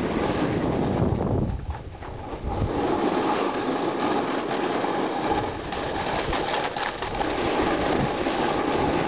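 Hard-packed snow scraping and rumbling under a rider sliding downhill, with wind buffeting the head-mounted camera's microphone. The scrape eases for a moment about two seconds in, then picks up again.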